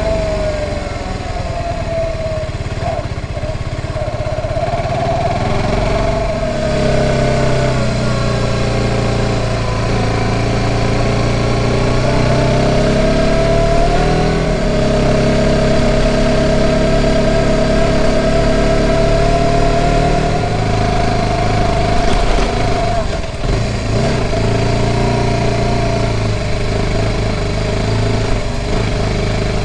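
Motorcycle engine running under way, its pitch drifting slowly up and down as the revs change.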